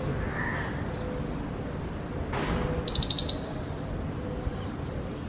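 A small bird's quick, high chattering call, a rapid run of about eight notes lasting half a second, about three seconds in, over steady outdoor background noise.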